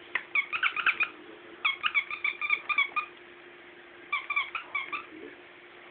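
Rubber squeaky toy squeaking in quick runs of short same-pitched squeaks as a puppy chomps on it, in three bursts with short pauses between.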